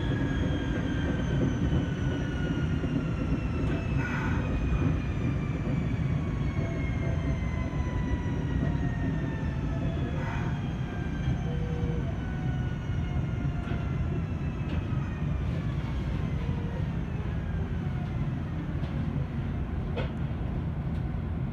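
Electric train heard from inside the passenger car: a steady rumble of wheels on the rails under a traction-motor whine that falls slowly in pitch as the train slows, with a few brief clicks.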